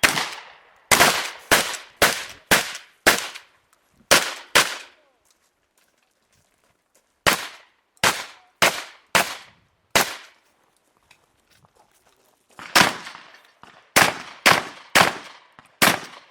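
Shotgun fired in rapid strings of about two shots a second: several shots, a pause of about two seconds, five shots, another pause, then a further string of shots.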